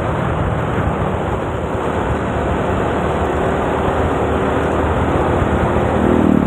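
Riding noise from a motor scooter underway: steady wind rush and road noise over the engine running at cruising speed. Near the end there is a brief rising tone.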